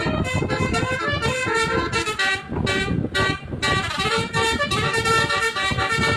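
Basuri musical horn on a bus playing a tune, its reedy notes stepping quickly from pitch to pitch over a low rumble.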